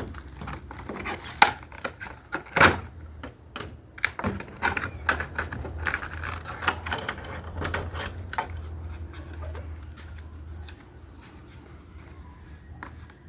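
Hands opening a product package and pulling out its contents: irregular rustling, clicks and small rattles, with a couple of sharper knocks in the first few seconds. A low steady hum runs underneath for most of it.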